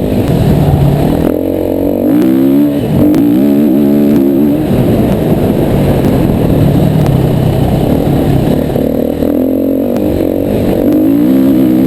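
Yamaha WR250R's single-cylinder four-stroke engine riding off-road, its revs climbing and dropping again and again with the throttle, with steadier, lower revs through the middle.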